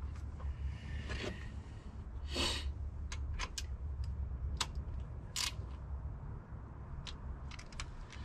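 Scattered sharp metal clicks and a couple of short scrapes, the loudest about two and a half and five and a half seconds in, from a hand wrench tightening the plug back into the high-pressure oil reservoir on top of a Ford 7.3 Powerstroke diesel engine. A low steady hum sits underneath.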